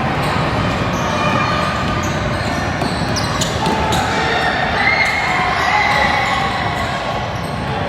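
Youth basketball game in a gym: a basketball bouncing on the court amid spectators' and players' voices, echoing in the hall.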